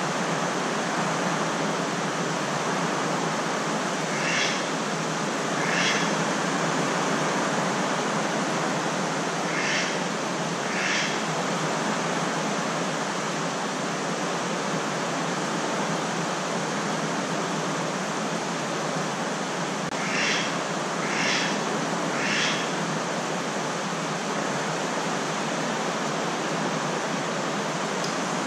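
Steady rushing noise of heavy typhoon rain. A few short, high animal calls sound over it: two about four seconds in, two around ten seconds, and three in quick succession a little after twenty seconds.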